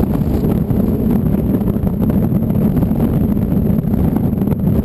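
Wind buffeting the wrist-mounted camera's microphone during a tandem parachute descent under canopy: a steady, low rumble of air.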